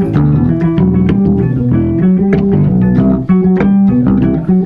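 Background music with a steady beat and a prominent bass guitar line.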